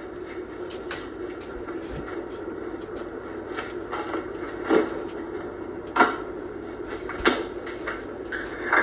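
Four short, sharp knocks in a kitchen, about a second and a half apart in the second half, over a steady low hum.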